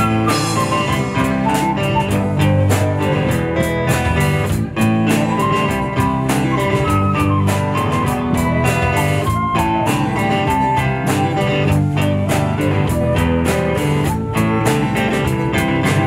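Live band playing an instrumental passage: flute melody over acoustic and electric guitars, with drum kit keeping a steady beat.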